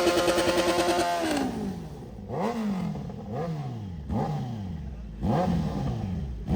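Kawasaki Z900's inline-four engine held at high revs during a burnout, then dropping away about a second in. Four quick throttle blips follow, each rising sharply and falling back.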